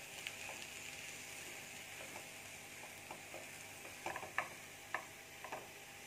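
Mashed-potato filling being stirred in a hot oiled pan, over a faint steady sizzle. The stirring utensil knocks and scrapes against the pan several times after about four seconds.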